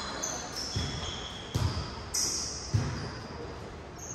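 Indoor volleyball play: three dull thuds of the ball, roughly a second apart, with short high squeaks of shoes on the court floor.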